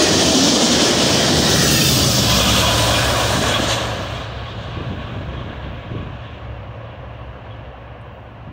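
Amtrak passenger train's coaches rolling past close by on the rails, with a steady loud rush of wheel and rail noise. About four seconds in the noise drops off as the trailing locomotive passes, then fades as the train moves away.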